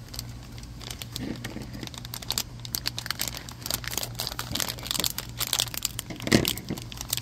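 Foil blind-bag packet crinkling in the hands and being snipped open with scissors: a quick, irregular run of crackles, with one louder crackle about six seconds in.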